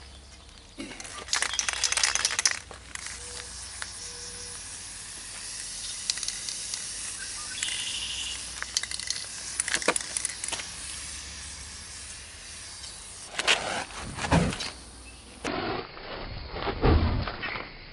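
Aerosol spray can hissing as flammable lubricant is sprayed into a tubeless lawn tractor tire at the bead, a loud burst about a second in and then a fainter steady hiss. A few low thumps follow near the end.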